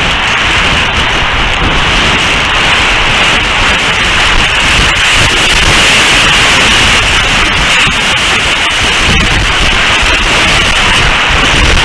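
Strong wind buffeting an outdoor nest-camera microphone: a loud, steady rush of noise with a heavy low rumble.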